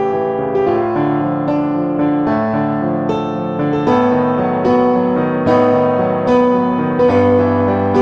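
Slow piano music, a new note or chord struck about every eight-tenths of a second, with a low bass note coming in near the end.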